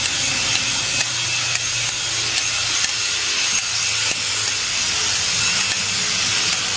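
Hand blade shears snipping through a sheep's wool fleece, a sharp click about twice a second, irregularly spaced, as the blades close.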